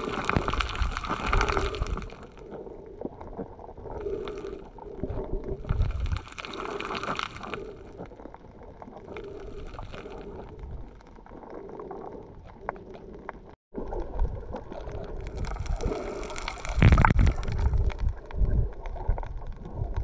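Muffled underwater water sounds heard through an action camera's waterproof housing: gurgling and sloshing that swell and fade every couple of seconds over a faint steady hum. A brief dropout about halfway through.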